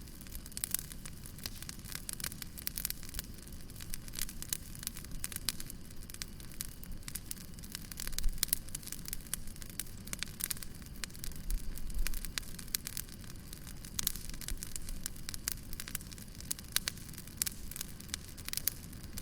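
Fireplace fire crackling: dense, irregular sharp pops and snaps over a low steady rumble of the flames, with a few louder pops about eight and twelve seconds in.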